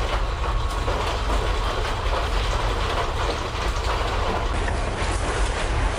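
Loud, continuous rumbling noise with fine rattling through it.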